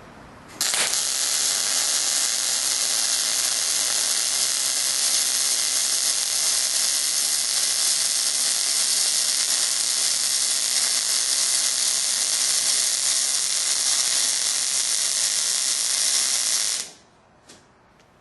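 Miller MIG welder's arc running steadily as a bead is laid on 1/8-inch steel with the torch leading the puddle, set at about 20 volts. It starts about half a second in, holds an even hiss, and cuts off abruptly about a second before the end.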